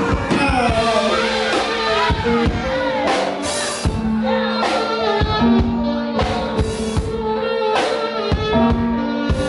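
A live band playing: a drum kit keeping the beat under held low notes, with a saxophone playing a bending melodic line.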